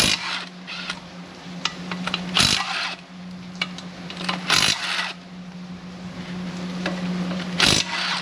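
Impact wrench run in four short bursts, each well under a second, loosening bolts. A steady low hum runs underneath.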